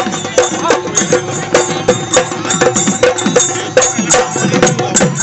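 Bihu folk music driven by dhol drumming: sharp strikes keep a steady beat of roughly two a second, with drum strokes that fall in pitch between them.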